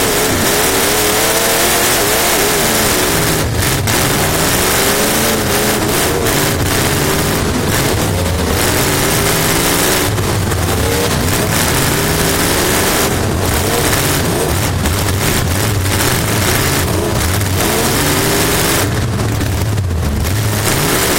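Race car engine heard from inside the car at racing speed, its pitch climbing and then falling again and again every few seconds as the driver accelerates and lifts, over a constant rush of wind and road noise.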